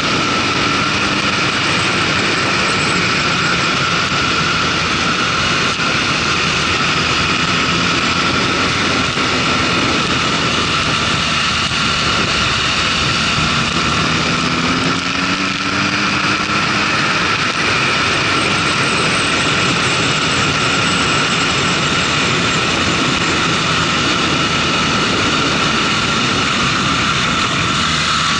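Motorcycle riding at road speed: the engine runs under the steady rush of wind over the camera's microphone. The engine note rises briefly about halfway through.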